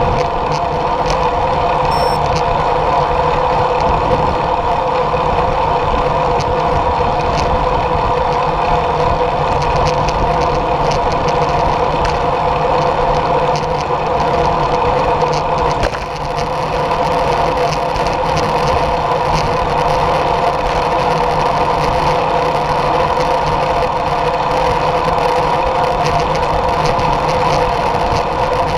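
Steady rush of wind over a bike-mounted action camera, with road-bike tyres humming on asphalt while riding at speed; the noise dips briefly about halfway through.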